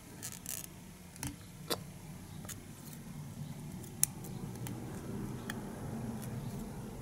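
Light, scattered clicks and rustles of hands throwing half hitches with a brass half-hitch tool on a fly held in the tying vise. A faint low hum runs underneath and grows slightly louder partway through.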